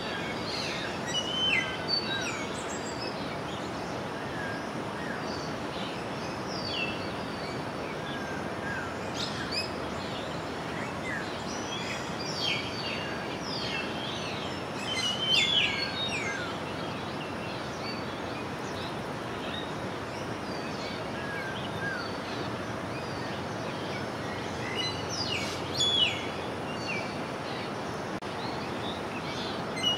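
Small birds chirping in short, high calls, in scattered bursts, over a steady rushing background noise.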